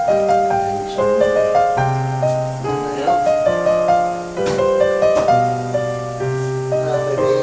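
Background piano music: a slow melody of single held notes over a steady lower accompaniment.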